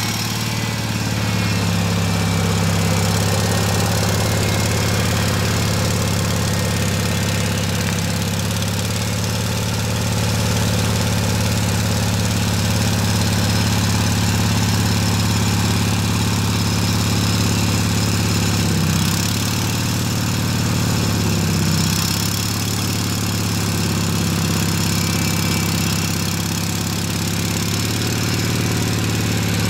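Kohler gas V-twin engine of a Spyder piggyback forklift running steadily, its note dipping and recovering briefly twice about two-thirds of the way through.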